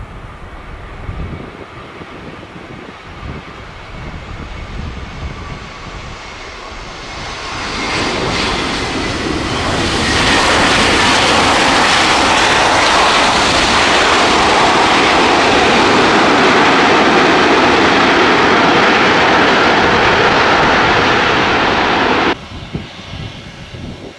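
Airbus A320's IAE V2500 turbofans heard through a landing: a faint falling whine over wind rumble on the final approach, then a loud, steady roar of reverse thrust after touchdown that holds for about twelve seconds and cuts off suddenly near the end.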